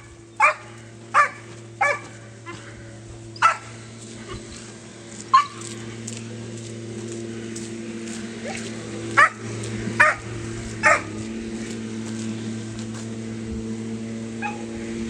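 A dog barking, about eight short sharp barks at irregular intervals, mostly in the first eleven seconds, over a steady low hum that slowly grows louder.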